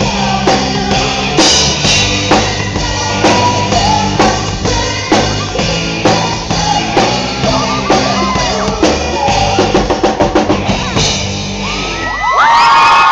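Live pop-rock band playing its song's final bars, with a drum kit and a female singer. A run of quick drum hits comes near the end, then the music stops and the audience breaks into high-pitched screaming and cheering.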